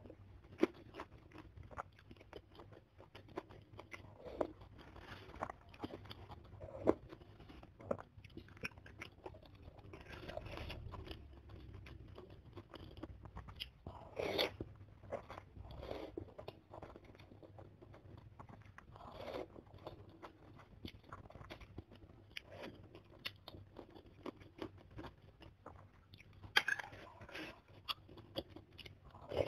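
Close-up mouth sounds of someone eating noodles, meatballs and tofu in broth: wet chewing with many small smacks and clicks. A louder slurp of noodles comes about halfway through.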